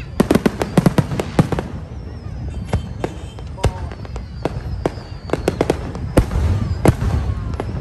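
Aerial fireworks shells bursting overhead: many sharp bangs in quick succession, densest in the first second and a half, then coming irregularly.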